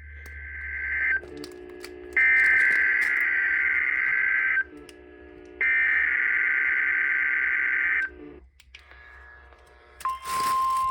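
NOAA Weather Radio emergency alert for a tornado watch. Three screeching SAME header data bursts play, the first fading in and the next two about two and a half seconds each with a second's gap between. About ten seconds in, a short burst of static is followed by the steady 1050 Hz warning alarm tone.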